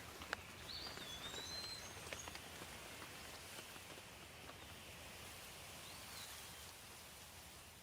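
Steady light rain with scattered drips, and a bird giving a short call about a second in and again near six seconds. The rain eases off slightly toward the end.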